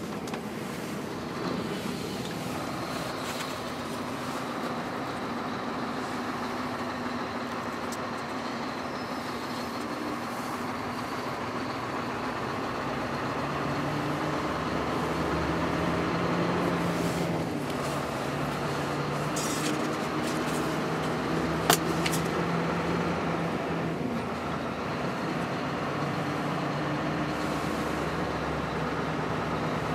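Scania 560 V8 truck engine heard from inside the cab, pulling along under load, its note rising and dipping briefly a couple of times as the Opticruise gearbox changes gear. A single sharp click sounds about two-thirds through.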